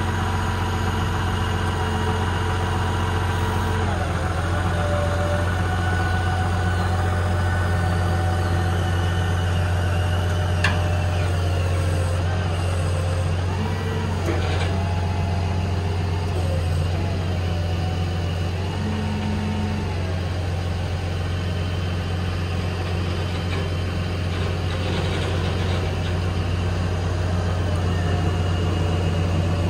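Cummins 6.7 inline-six diesel running steadily while the IMT crane's hydraulics are operated. A whine from the hydraulics shifts pitch several times as the boom is lowered and telescoped out, with a sharp click about ten seconds in.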